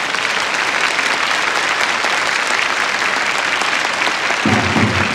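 Stadium crowd applauding, a dense steady clapping; a low rhythmic thumping sets in near the end.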